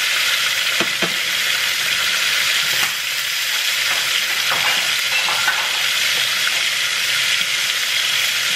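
Chicken thighs sizzling steadily in oil in a frying pan, with a utensil stirring a pot of mashed potatoes.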